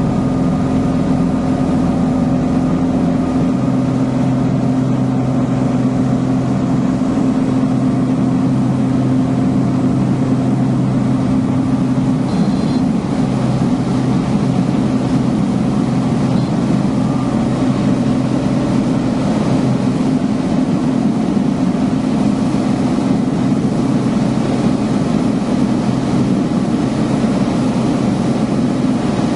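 Piper Turbo Arrow's turbocharged six-cylinder engine and propeller running at full takeoff power, a loud steady drone through the takeoff roll and climb-out.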